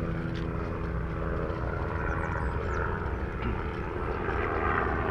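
Steady riding noise from a bicycle rolling on asphalt, picked up by a handlebar-mounted action camera. A low engine hum fades out about halfway through.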